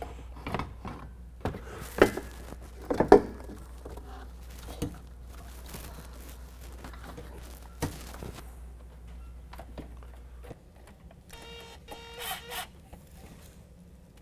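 Knocks and clunks of plastic and aluminium parts being handled as an intercooler assembly with its plastic shroud is lowered into place, the loudest about two and three seconds in. A brief squeal comes near the end.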